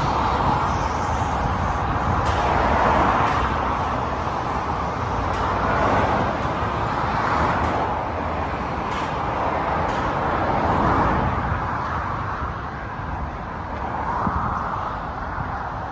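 Motorway traffic: a steady rush of tyre and engine noise from cars, vans and lorries, swelling and fading as vehicles pass.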